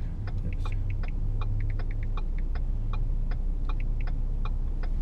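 A car's low, steady engine and road rumble heard from inside the cabin while driving, with many light, irregular ticks over it.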